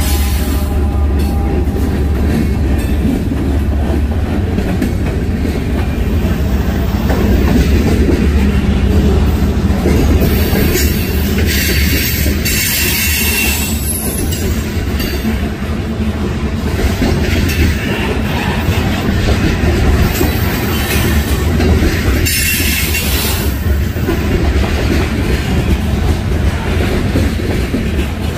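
CSX mixed freight train moving along the rails with a steady, loud low rumble. Brief harsher high-pitched stretches come about halfway through and again near the end.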